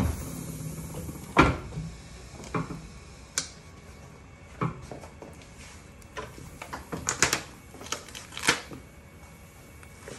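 Chandler & Price platen letterpress being worked through its cycle: irregular metallic clanks and clicks from the platen, roller arms and linkage. The loudest knock comes about a second and a half in, with a quick run of clicks a little past the middle.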